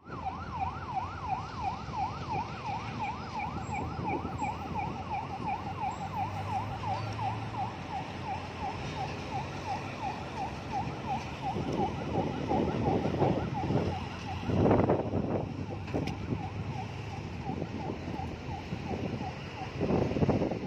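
A vehicle siren yelps rapidly, rising and falling about three times a second, and fades after the middle. Louder rushes of heavy-truck road noise swell past around the middle and again near the end.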